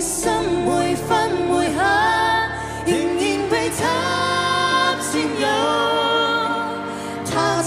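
A woman singing a ballad over instrumental backing, holding several long notes.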